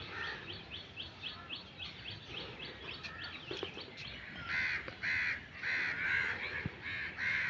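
A crow cawing over and over, about twice a second, through the second half. Before that comes a rapid run of short high chirps, about six a second.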